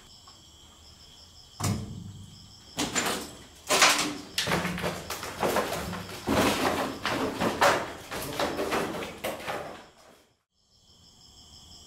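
Repeated knocks, scrapes and clatter of people moving and handling gear in a debris-strewn corridor, starting about two seconds in and stopping abruptly near the end. Crickets chirp faintly where it is quieter.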